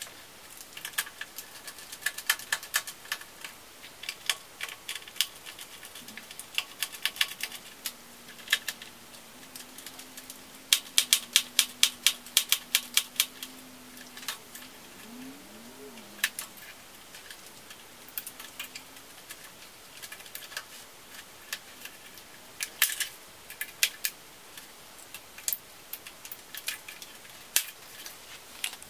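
Sharp plastic clicks and taps as a laptop keyboard is pried and worked loose from the ThinkPad T540p's chassis, scattered throughout, with a quick run of clicks about ten seconds in.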